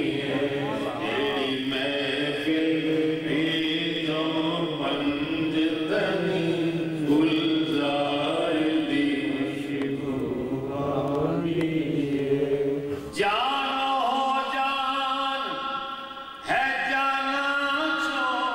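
A group of men chanting together in unison, several voices overlapping; about thirteen seconds in, a single male voice takes over, singing a phrase alone with short breaks.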